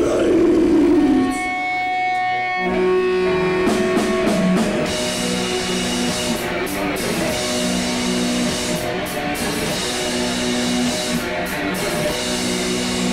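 Distorted electric guitar playing live, slow held chords and notes that change every second or so, heavier from about two and a half seconds in.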